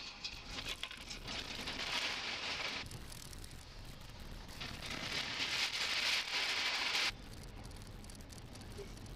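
Road and tyre noise of a Mahindra XUV on a rough dirt road, picked up by a dashcam inside the cabin: a steady hiss over a low rumble that grows louder and then drops away abruptly twice, about three seconds in and about seven seconds in, where clips of the drive are joined.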